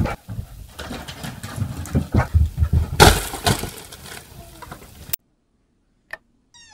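Wrapping paper crinkling and tearing as a dog rips open a present, with a loud long rip about three seconds in. It stops abruptly, and after a pause there is a single click.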